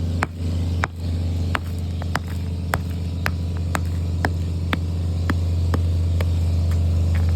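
Hammer blows knocking off the scored edge of the road, sharp strikes about twice a second, over an engine running steadily.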